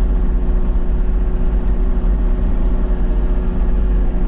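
Small excavator's engine running at a steady speed, a constant low hum and rumble.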